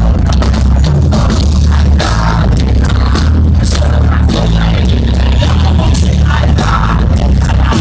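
Heavy metal band playing loudly live, with a pounding low bass line and drums.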